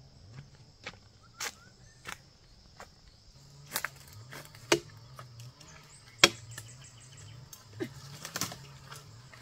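Irregular sharp snaps and knocks, a dozen or so, the loudest about six seconds in, over a steady high chirring of insects.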